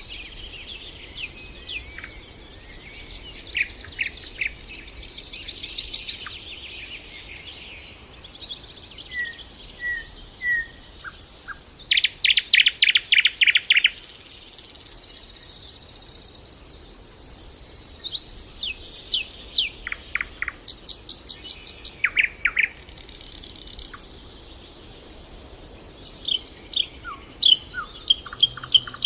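Nightingale singing in separate phrases: rapid runs of repeated notes, loudest about twelve seconds in, and a few slow clear whistles, over a faint steady background.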